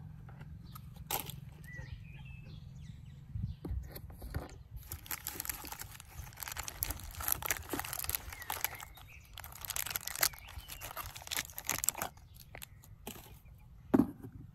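Clear plastic bag crinkling and rustling as a toy tractor is unwrapped by hand, with scattered small clicks of plastic handling, then one sharp knock near the end as the toy is set down on a cardboard box. Birds chirp faintly now and then.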